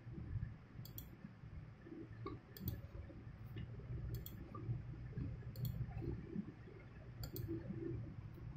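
Computer mouse clicking, sharp light clicks that often come in quick pairs, about every one and a half seconds, over a faint low rumble.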